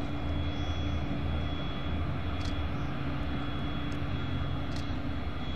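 Spanish Navy frigate Álvaro de Bazán passing close, its machinery giving a steady low drone with a thin steady high tone above it.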